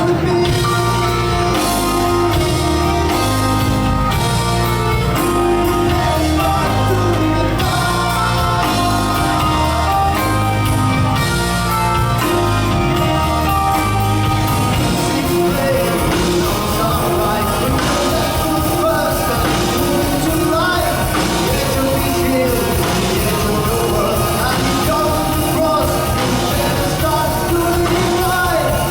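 Live rock band playing progressive rock, with drums, bass, electric guitar and keyboards under a sung lead vocal. The low bass line moves in a repeating pattern of held notes for the first half, then the texture changes about halfway through.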